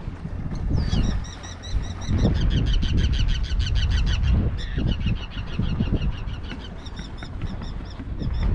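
A bird calling in two long runs of rapid, high, repeated chirps, about five or six a second, over the low rumble of wind on the microphone.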